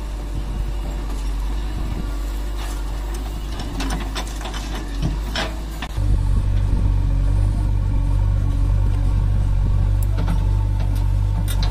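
Diesel engine of a JCB 3DX backhoe loader running under work as it loads soil into a tipper truck, with scattered knocks and clatter in the first half. About six seconds in the engine sound jumps suddenly louder and deeper and stays there.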